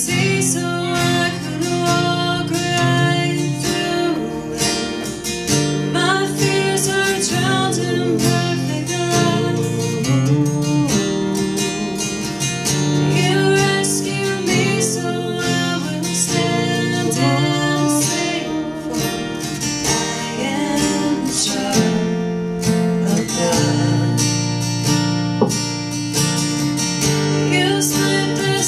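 Acoustic guitar strummed steadily while a woman sings into a microphone, a live guitar-and-voice performance.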